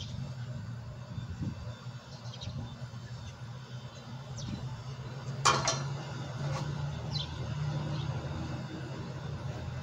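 A row of hermetic refrigeration compressors running with a steady low hum. A sharp click about halfway through, and a few short high chirps scattered through.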